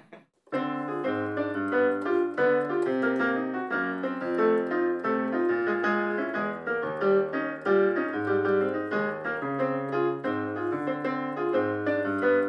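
Piano music, a steady run of notes over lower bass notes, starting about half a second in after a brief silence.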